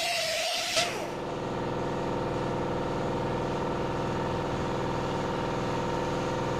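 Air die grinder with a sanding pad whining against a metal racing propeller blade, cutting off with a click just under a second in. An air compressor then runs steadily, catching up on pressure after the grinding.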